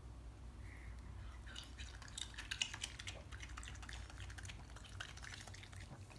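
Raccoon eating soft fruit: faint wet chewing and lip-smacking clicks, busiest in the middle, with one sharper smack.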